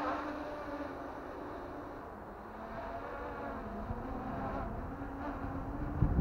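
MJX Bugs 3 Pro quadcopter overhead, its propellers humming as it is buffeted by strong wind while carrying a gimbal and camera. The hum's pitch dips about two seconds in and then rises back. Wind rumbles on the microphone, swelling near the end.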